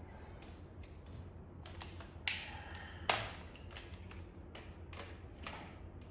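Metal tools and parts clinking and tapping during motorcycle wheel-change work, with two louder ringing metallic clanks a little under a second apart around the middle.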